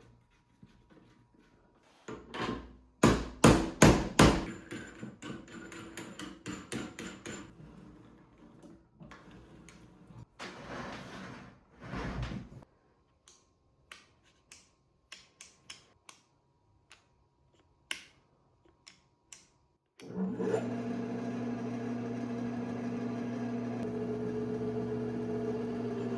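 Hammer blows on metal: a run of loud knocks about two seconds in, then lighter taps and scattered clicks. About twenty seconds in, a motor starts and runs with a steady hum.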